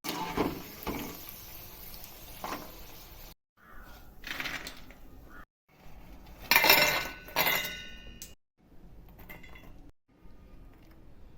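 Utensils clinking and clattering against dishes in a few short bursts, broken by abrupt cuts; the loudest clatter, about two-thirds of the way through, leaves a brief metallic ring.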